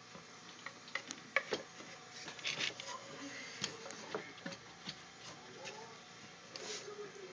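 Scattered light clicks and knocks at irregular intervals from the wooden linkage arms and metal pivot joints of a homemade polygraph duplicator being handled and moved.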